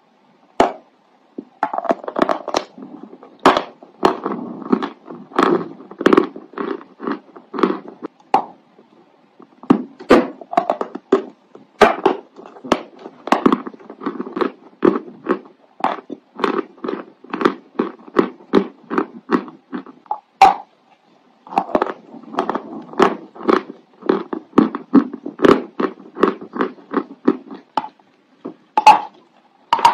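Big bites into a lump of white chalk and crunchy chewing: a run of dry crunches, two or three a second, with a few short pauses.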